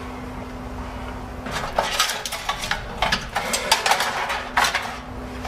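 Quick metallic clicks and clinks of computer parts being handled in and against a metal PC case, starting about a second and a half in, over a steady low hum.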